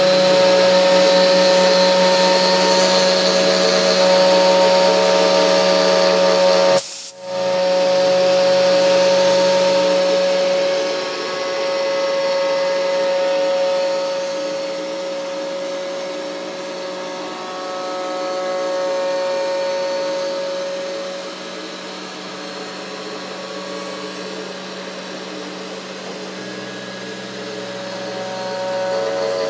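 CNC 3020 desktop router's spindle running as its cutter mills a design into a wooden board: a steady machine whine, with lower tones that come and go as the machine moves. The sound breaks off briefly about seven seconds in.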